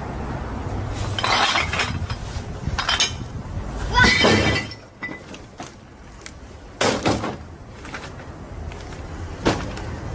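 Clinking and clattering of glass bottles and trash being handled, coming in several separate bursts, the loudest about four seconds in.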